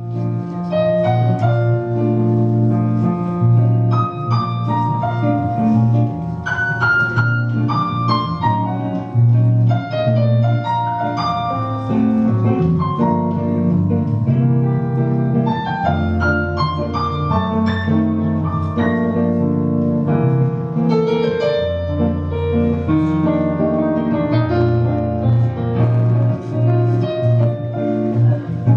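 Jazz played on a keyboard with a piano sound: a moving melody and chords over held bass notes.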